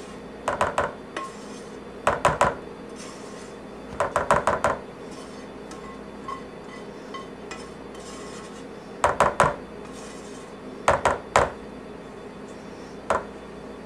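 A wooden spoon knocking against a pot while scraping a thick mixture out of it: six quick clusters of three or four sharp knocks, with a longer pause in the middle.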